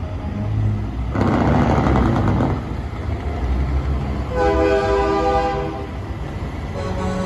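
Semi truck's multi-note air horn sounding a chord for about a second and a half, about four seconds in, and again briefly near the end, over the diesel engine's rumble as the truck passes. A loud rushing burst comes about a second in.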